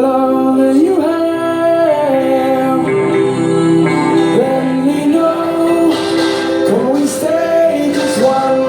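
Live song: a voice holding long sung notes that slide between pitches, over a steady guitar accompaniment.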